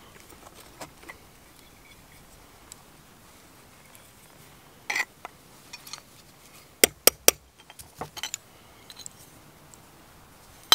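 Copper being shaped cold on a small steel anvil and mandrel: scattered light metallic clinks and handling noises, with three sharp metal taps in quick succession about seven seconds in, the loudest sounds.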